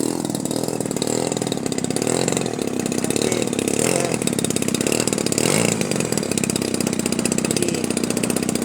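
A small combustion engine running close by with a rapid, even firing beat, its pitch rising and falling slightly as the throttle moves.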